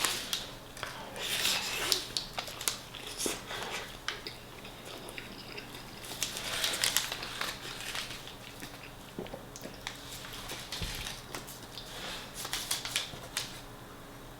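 Close-up eating: bites into a soft chicken shawarma wrap topped with beans, with chewing, small clicks of the mouth, and wrapper paper crinkling in several short spells.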